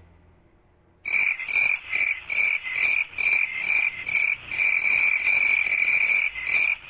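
An animal calling in a fast, unbroken run of repeated pulses that starts about a second in and stops abruptly near the end.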